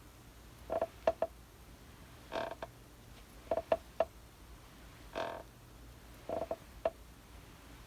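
Rocking chair squeaking as it rocks back and forth: a drawn-out creak and a group of short, sharper squeaks alternate, about one group every one and a half seconds.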